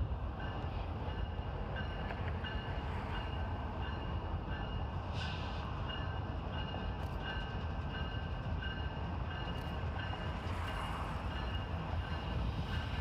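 Union Pacific diesel-electric freight locomotives approaching slowly, a steady low engine rumble.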